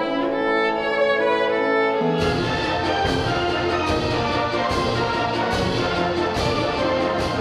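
Student symphony orchestra playing classical music: held string notes at first, then about two seconds in a fuller, louder passage with low strings, brass and sharp repeated accents.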